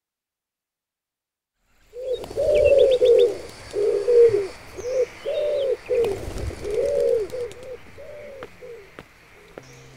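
Pigeons cooing: a run of short, arched coos, one after another, starting about two seconds in and fading near the end. A few brief high chirps come in early on top.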